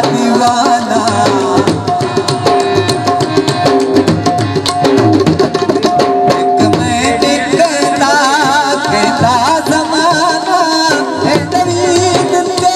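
Live Punjabi jhumar folk music over a PA system: hand drums play a fast rhythm under a sustained, wavering melody line.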